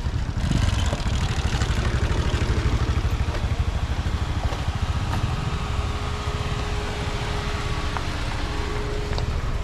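Steady low rumble of a motor vehicle running, with a faint steady tone that comes in about halfway through.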